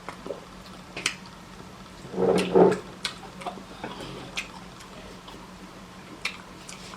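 Close-up eating sounds: scattered wet clicks of chewing and lip-smacking, with a louder, longer mouth sound about two seconds in, over a steady low hum.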